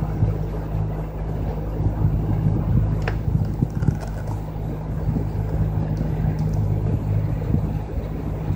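Pontoon boat's motor running steadily while under way, a constant low hum with water and air noise over it. A single sharp click sounds about three seconds in.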